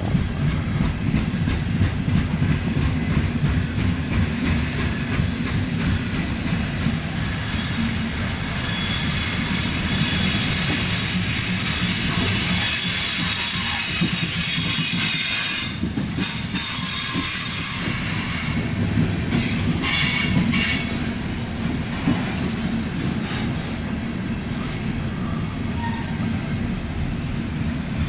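Loaded coal train of hopper cars rolling past at close range: a steady rumble of wheels on rail, with a high-pitched wheel squeal from about six seconds in until about fifteen seconds, then a few seconds of clicking and clatter.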